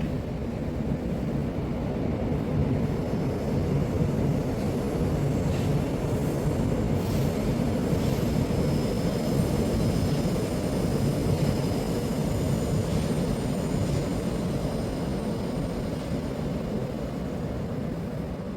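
A low engine rumble that swells over the first few seconds and fades slowly toward the end, like a vehicle passing by.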